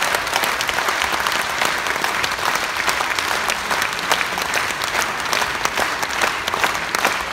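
A theatre audience applauding steadily, with sharp individual claps from people close by standing out from the massed clapping.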